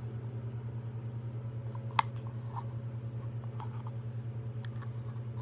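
Light clicks and taps of hands handling a hard resin ball-jointed doll head, with one sharp click about two seconds in. A steady low hum runs underneath.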